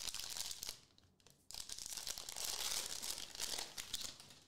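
Foil wrapper of a Prizm Premier League trading-card pack being crinkled and torn open by hand. A short burst of crinkling comes first, then a pause about a second in, then a longer stretch of crinkling and tearing.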